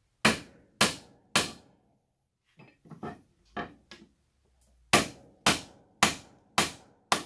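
Hammer blows on a wood block, driving a steel axe head down onto a tight-fitting new wooden handle. Three sharp blows come about half a second apart, then a few lighter taps, then five more sharp blows at the same steady pace near the end.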